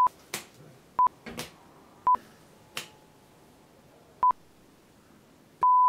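Short electronic beep tones at a single pitch, about one a second with a gap, then a longer half-second bleep near the end with the rest of the sound cut out under it. Between the beeps come a few soft, short rustles.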